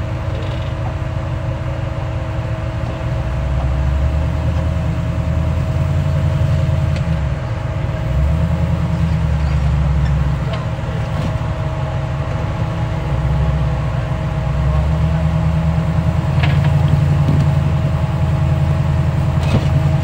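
Jeep Wrangler engine running at low revs as it crawls over rocks, the throttle swelling and easing several times, with a few short clicks or knocks near the end.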